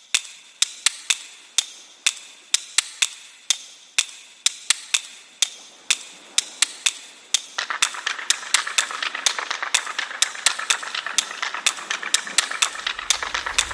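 Sharp, irregular taps, about two a second, on packaging being handled. A little past halfway a steady scratchy rustle starts under them and the taps come faster and closer together.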